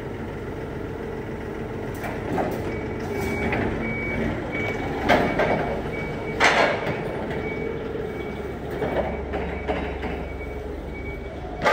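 A vehicle's reversing alarm beeping in a steady repeating pattern over a running engine, with a few knocks and clatters in between.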